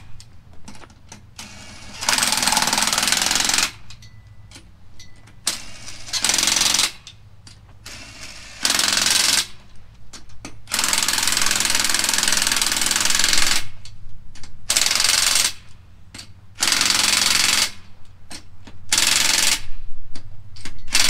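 Ridgid 1/2-inch impact wrench hammering wheel lug nuts tight through a 100 ft-lb torque stick, in a series of bursts from about half a second to three seconds long with short pauses between, working around the nuts in a star pattern.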